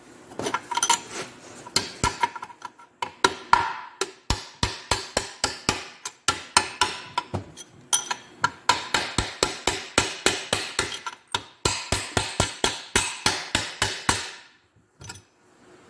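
Steady mallet blows on a cast-iron Austin Healey gearbox casing, about three a second, knocking the tight front gear cluster loose. A few light clinks come first, and the blows stop about a second before the end.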